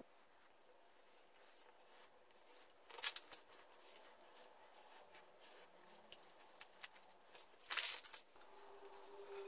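A craft knife slicing through a paper pattern sheet, with paper rustling as the sheets are handled; two louder, short scraping cuts, one about three seconds in and a longer one near the end.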